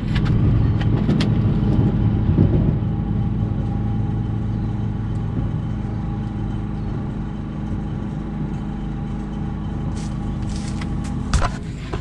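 Portable generator running steadily with a constant low engine hum. A few sharp knocks come near the end.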